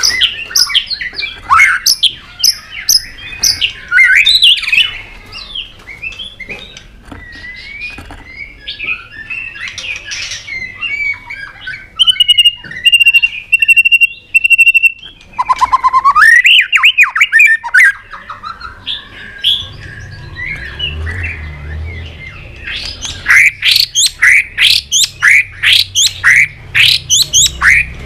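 White-rumped shama singing a varied song of quick whistles, chirps and harsher notes. Midway there is a long, even, buzzing note lasting about three seconds. Near the end comes a rapid run of repeated falling notes, over a low hum.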